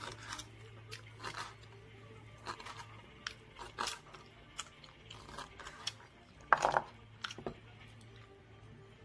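Chef's knife chopping boiled rock octopus on a cutting board: irregular taps of the blade through the flesh onto the board, with one louder knock about six and a half seconds in, over a low steady hum.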